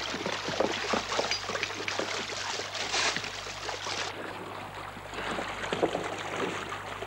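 Water running through a wooden gold-washing sluice while shovels scrape and dump gravel, stones clattering in the trough in many short knocks.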